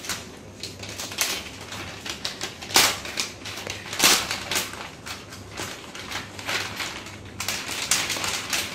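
Clear plastic zip pouch being opened and handled: irregular crinkling and crackling of stiff plastic. The crackles are loudest about three and four seconds in, and the crinkling grows denser near the end.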